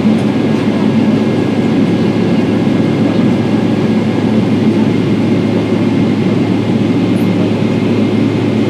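Boeing 777-300ER's GE90-115B turbofan running steadily after its start, heard from inside the cabin: a loud, even rumble with a low hum and no change in pitch.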